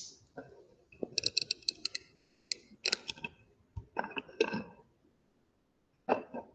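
Handling noise as a camera is picked up and set back in place: a quick run of sharp clicks about a second in, then scattered clicks and knocks.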